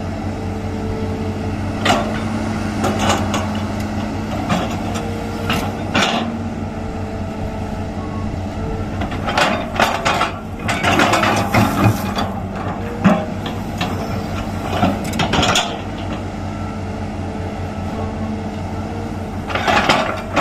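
Hydraulic excavator's diesel engine running steadily, with irregular metal clanks and scraping bursts from the working machine, busiest in the middle.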